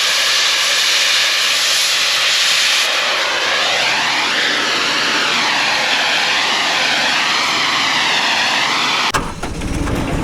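Loud, steady jet-like rushing roar with a slow sweeping whoosh that rises and falls in pitch. It cuts off suddenly about nine seconds in, and music with a low beat starts.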